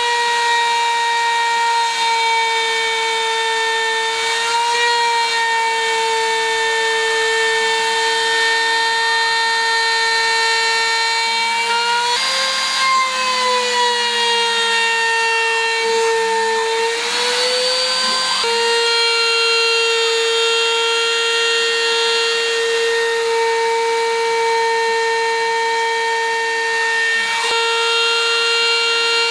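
Porter-Cable router spindle on a CNC router running with a steady high-pitched whine as its bit carves engraved lettering into a wooden board. The pitch rises and sags for several seconds midway.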